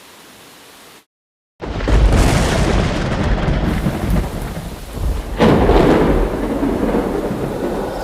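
Thunderstorm sound effect. Faint hiss cuts to silence for a moment, then thunder breaks loudly about a second and a half in and rolls on over a steady rain-like hiss. It surges again about five and a half seconds in.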